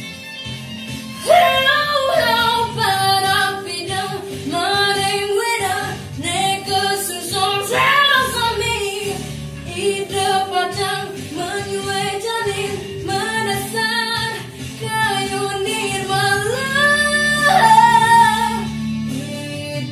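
A girl singing solo over instrumental accompaniment. Her voice comes in about a second in after a short instrumental lead-in and carries the melody in long held notes.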